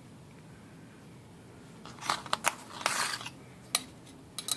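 Small metal parts of a typewriter being handled: a cluster of sharp clicks and a short scrape about two seconds in, then single clicks near the end.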